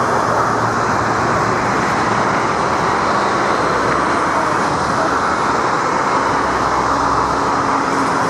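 Boeing 777 jet engines heard from beside the runway as the airliner touches down and rolls out: a loud, steady rushing noise that holds level throughout.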